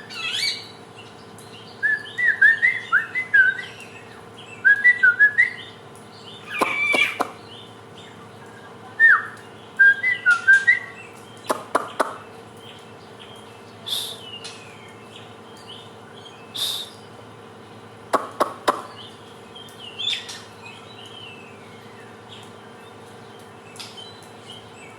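Samyong birdsong: bursts of varied chirps and short whistled phrases, with sharp high notes now and then and pauses between the phrases. A faint steady hum runs underneath.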